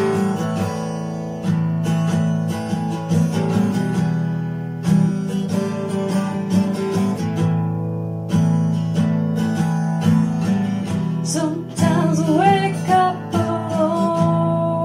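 Music: a strummed acoustic guitar playing chords, with a singing voice coming in about three-quarters through and holding a long note.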